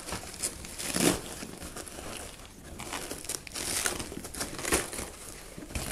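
Fabric and padded dividers of a camera/FPV backpack rustling and crinkling as hands rearrange gear inside it, with irregular soft handling noises and a louder rustle about a second in.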